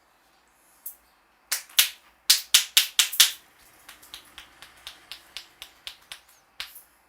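Sharp snapping clicks from the barber's hands at work on the head: a quick run of about seven loud snaps, then lighter, evenly spaced snaps about four a second.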